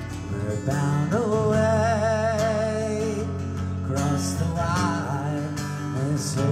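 A man singing held notes with vibrato while strumming an acoustic guitar; the voice comes in about a second in.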